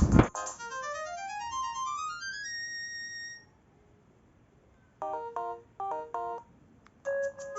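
LG GB115 mobile phone ringtones playing one after another. A loud tune cuts off at the start, then a run of electronic notes climbs in pitch for about three seconds. After a short pause comes a brief jingle of short notes sounding several at once, and after another pause the next ringtone starts near the end.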